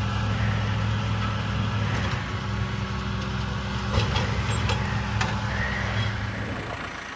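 A vehicle engine running steadily at an even pitch, with a few light clicks; the hum drops away shortly before the end.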